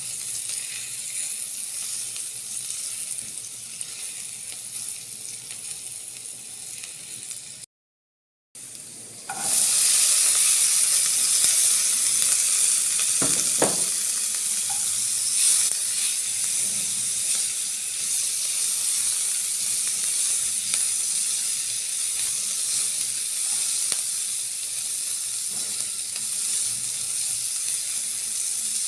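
Food sizzling in hot oil in a frying pan. The sound drops out briefly about eight seconds in, then returns as a louder, steady sizzle about nine seconds in.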